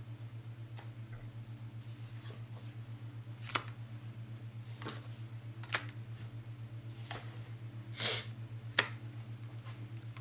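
Tarot cards being handled: a handful of sharp card taps and clicks and one brief swish of cards, over a steady low hum.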